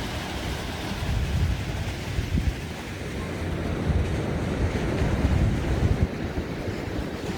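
Ocean surf washing on a sandy beach, a steady rushing wash, with wind buffeting the microphone in irregular low gusts.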